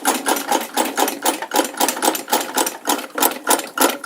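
Antique William Birch industrial chain-stitch sewing machine running, a fast, even mechanical clacking of about six strokes a second.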